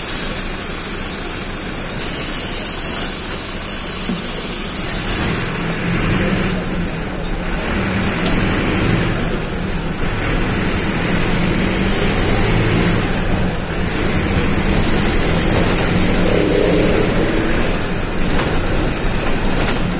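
Caio Apache Vip 4 city bus under way, heard from the driver's seat: the diesel engine runs under steady road and cabin noise, its note shifting up and down as the bus moves through the gears.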